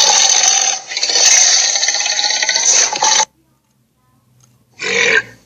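Torvosaurus Sharptooth roar sound effect: a loud, harsh, raspy roar with a short break about a second in, cutting off abruptly after about three seconds, then one short growl near the end.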